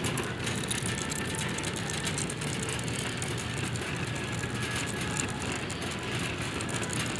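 Steady light rattling and clicking over a low, even hum, with no single loud event.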